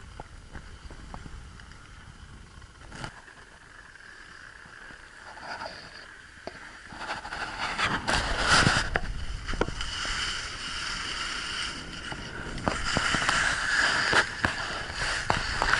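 Snow scraping and hissing under a rider sliding down a groomed ski slope, with a low rumble. Faint for the first several seconds, it grows louder and rougher from about seven seconds in as the descent gets under way.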